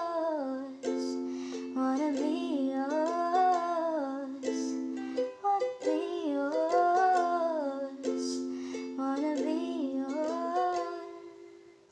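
Strummed acoustic string instrument playing the song's chords under a wordless sung melody, fading away near the end.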